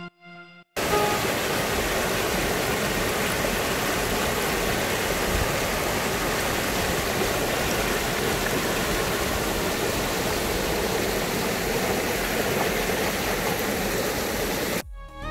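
Small rocky stream rushing and splashing over stones in a steady, even rush of water. It starts about a second in and cuts off just before the end.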